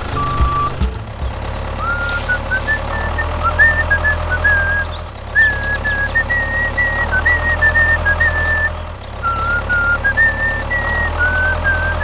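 A tractor engine sound running steadily with a low drone that drops out briefly twice, under a simple high-pitched tune of short stepping notes.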